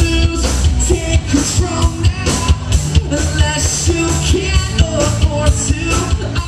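Live rock band playing: a singer's voice over electric guitars and drums, with a steady drum beat.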